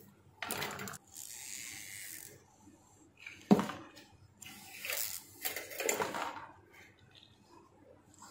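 Coiled heating-element wire being stretched out by gloved hands, with scattered rustles and scrapes as the coil slides and springs on the bench. One sharp click comes about three and a half seconds in.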